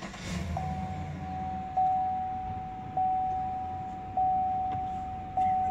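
Dashboard warning chime of a 2018 Chevrolet Tahoe, a single fading tone repeating about every 1.2 seconds, five times, over the low hum of the engine idling just after start-up.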